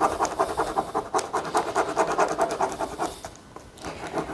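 Quick back-and-forth rubbing over a sheet of paper laid on drawing paper, burnishing to transfer a pencil drawing: a fast run of short scratchy strokes. It pauses briefly about three seconds in and starts again near the end.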